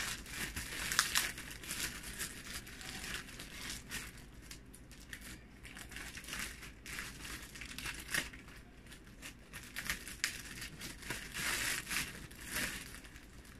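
Plastic courier pouch and packing tape crinkling, rustling and tearing as a parcel is worked open by hand. The crackles come irregularly, with a few louder ones near the start.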